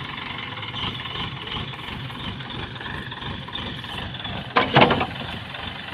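Heavy diesel engine running steadily under work, with one brief louder sound about three-quarters of the way through.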